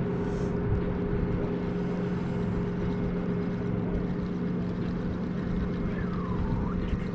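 Boat motor running with a steady, even hum.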